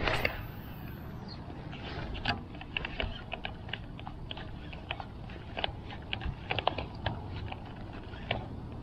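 Baitcasting reel and rod being worked by hand: irregular light clicks and ticks, a few a second, over a low steady background.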